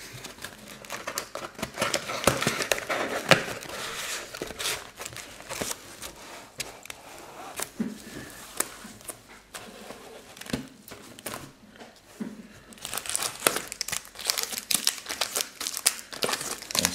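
Foil booster pack wrappers crinkling and rustling as they are handled and pulled out of a cardboard booster box, in irregular crackles that get busier and louder near the end.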